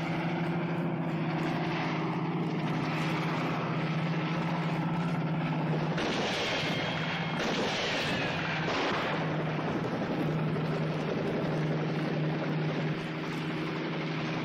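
Helicopter engine and rotor drone running steadily, with three gunshots about a second and a half apart near the middle, each followed by a falling ricochet whine.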